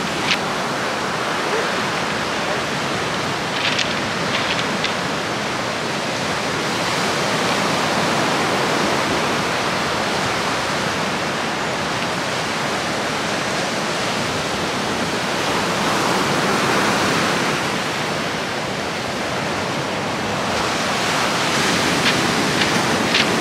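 Surf breaking on the shore: a steady rush of waves that swells and eases every several seconds, with a few faint clicks about four seconds in and again near the end.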